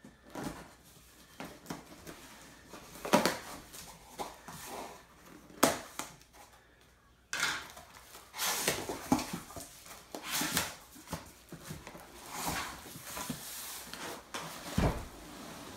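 Cardboard shipping box being cut open with scissors and unpacked: irregular scraping, rustling and knocking of cardboard flaps, busier about halfway through, with a heavy thump near the end as the box is set upright on the wooden table.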